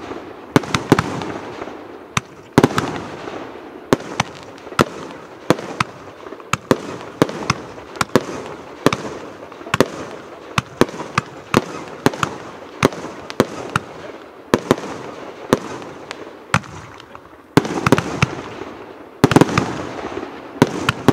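Rubro 'Zero Tolerance' 152-shot firework cake firing: a steady string of sharp bangs, about two a second, with a continuous hiss between them, growing denser near the end.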